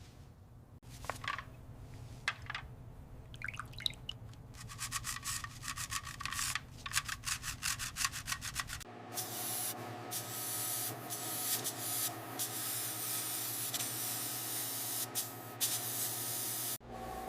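Sanding: quick, scratchy rubbing strokes that grow denser, giving way about halfway to a steadier hiss broken by short pauses.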